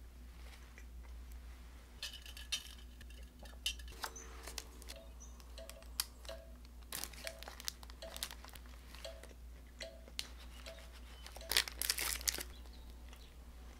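Paper sandwich wrapper crinkling and rustling in several bursts as it is handled and peeled back, loudest near the end.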